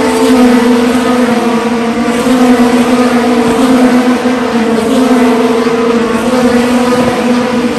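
Race car engines running at high revs: a loud, steady drone in which several engine notes are layered together.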